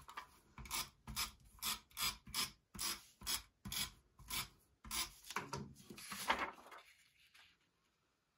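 Paper being rubbed and swept by hand on a cutting mat: a quick run of about ten short rasping strokes, two or three a second, then two longer swipes.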